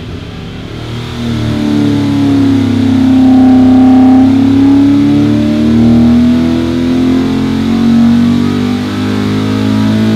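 Oversquare 329 cubic-inch small-block Chevy V8 (a 283 crankshaft in a 400 block) running under load on an engine dyno. Its revs climb from about 4,800 to 6,800 rpm, and it gets loud about a second in.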